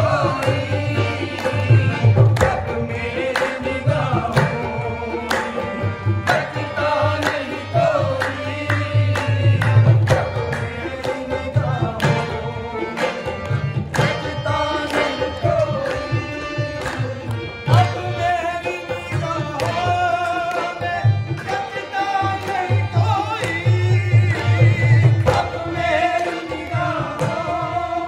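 Live Sufi devotional song, qawwali-style: a man singing over harmonium accompaniment with a hand drum keeping a steady beat.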